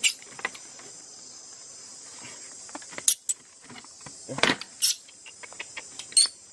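Crickets chirring steadily and high-pitched, with several sharp clicks and knocks from the plastic basket trap as a baby monkey is handled out of it.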